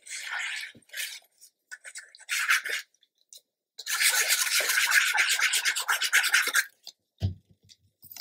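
Tip of a glue bottle scratching across the back of a paper card as glue is laid on, in several short strokes and then one long stroke of about three seconds. A soft low thump near the end.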